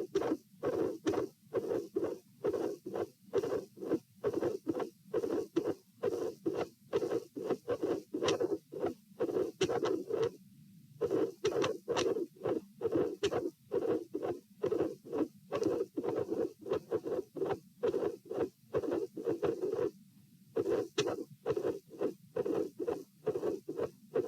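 Heart sounds through a stethoscope at position P: paired lub-dub beats at about 66–72 a minute, with a midsystolic murmur, from a heart with a dilated aortic root. The rhythm is irregular, with two longer pauses about ten and twenty seconds in.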